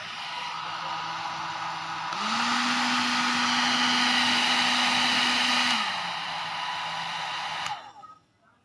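Handheld electric hair dryer running, its motor hum and rush of hot air stepping up louder and higher about two seconds in, dropping back to the lower setting near six seconds, then switched off and winding down near the end.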